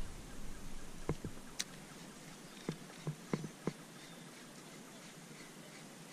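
Fishing gear being handled in a plastic kayak: about six sharp clicks and knocks over the first few seconds, then only a faint steady background with a few faint high chirps.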